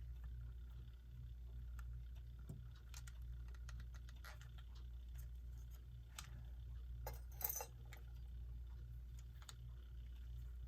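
Faint small clicks and taps of metal clock hands being handled and pressed onto the shafts of a quartz clock movement, with a quick cluster of clicks about seven seconds in. A low steady hum runs underneath.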